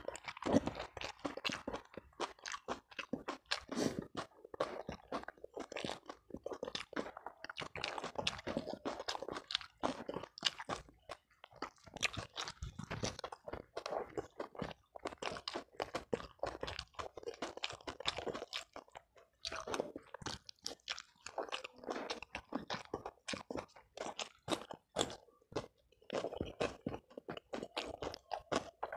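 A person chewing a mouthful of food up close, with many small, irregular crunches in quick succession. Near the end a cucumber slice is bitten.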